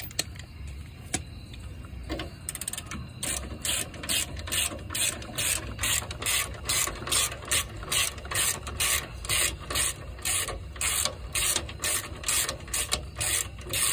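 Hand ratchet clicking in quick, even back-and-forth strokes, about two to three a second, as it backs a front differential mount nut off its bolt. The clicking starts a couple of seconds in.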